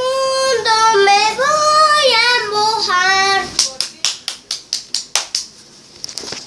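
A young boy sings a short phrase of held and gliding notes. Then, about three and a half seconds in, he claps his hands quickly, about eleven claps at roughly six a second.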